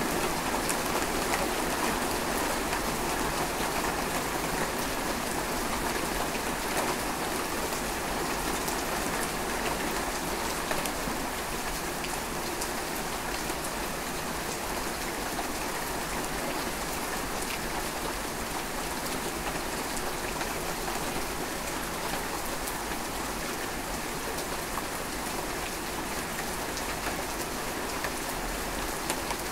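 Steady rain falling, with many sharp ticks of single drops landing close by; it eases off slightly over the first ten seconds or so, then holds even.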